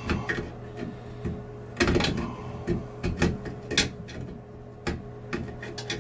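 Adjustable pliers clinking and knocking against a chrome sink drain trap as its slip nut is worked loose: irregular metal clicks, with a louder cluster of knocks about two seconds in.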